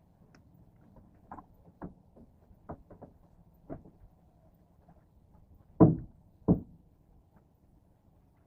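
Irregular knocks and bumps around a small fishing boat, with two much louder thumps about six seconds in, half a second apart.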